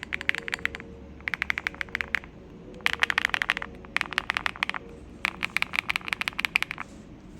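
Typing on a QK80 MK2 mechanical keyboard with an FR4 plate, SW x Keygeek Tori switches and Candy Box keycaps: five fast runs of keystrokes, clacking in quick succession with short pauses between runs.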